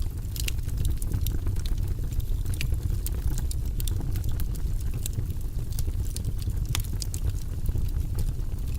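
Fire burning in a fireplace, crackling and popping irregularly over a steady low rumble.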